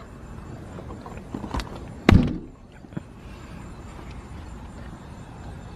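A single loud, sudden thump about two seconds in, dying away quickly, with a fainter click just before it, over a steady low rumble.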